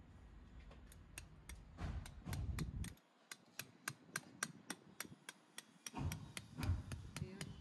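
Steel U-shaped landscape pins being hammered through a weed-control sheet into the ground: quick, light metallic taps, about four or five a second.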